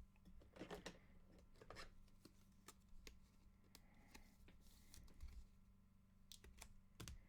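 Faint handling of trading cards: soft slides, rustles and light clicks scattered throughout, over a low steady hum.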